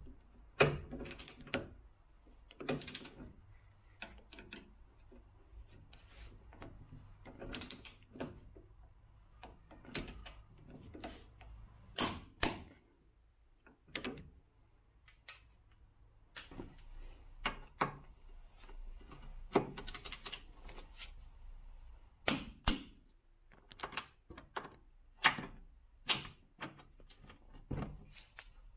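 Hand tools and metal parts clicking and knocking at irregular intervals, a few dozen sharp knocks with short pauses between them.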